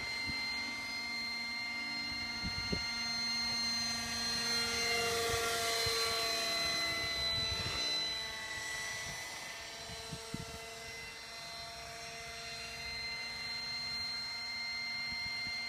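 Scale RC Gazelle model helicopter in flight: a steady high whine from its rotors and motor-driven fenestron tail rotor. It grows louder and dips slightly in pitch as the helicopter passes nearest, about midway, then fades a little. Two brief knocks are heard, near the start and past the middle.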